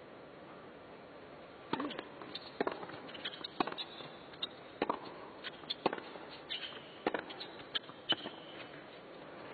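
Tennis ball being struck back and forth in a rally on an indoor hard court: sharp pops of racket strings on the ball and ball bounces, irregularly spaced, over a hushed arena. The strikes begin after about a second and a half of near-quiet.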